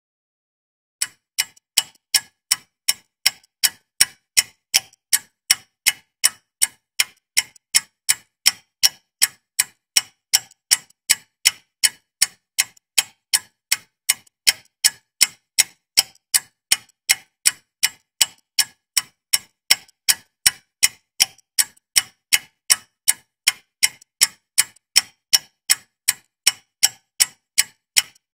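A clock ticking steadily, about two and a half sharp ticks a second, starting about a second in.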